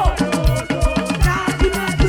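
Upbeat African gospel praise music: a driving drum and bass beat under held melodic tones.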